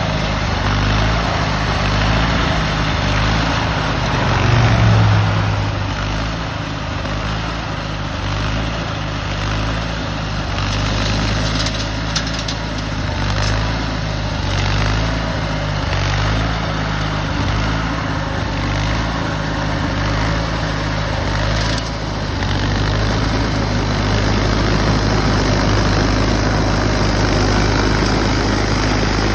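Case garden tractor engine running steadily under load while it drives a front-mounted snowblower that is throwing snow. It swells briefly about five seconds in.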